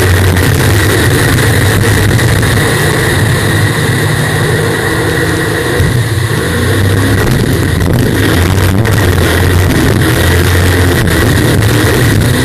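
Unlimited-class racing jet boat's engine running at high power, with a loud, steady rush of wind and water over the hull. It eases slightly about five or six seconds in, then builds again.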